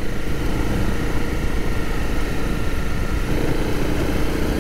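Motorcycle engine running steadily while riding along a dirt road, with wind noise.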